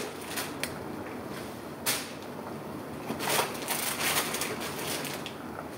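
Handling noises: a few short knocks and rustles, with a clear knock about two seconds in, over a steady faint hiss.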